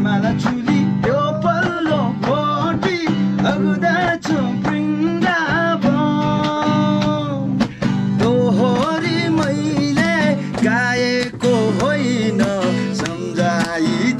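A man singing while playing a cutaway acoustic guitar, holding one long note about six seconds in.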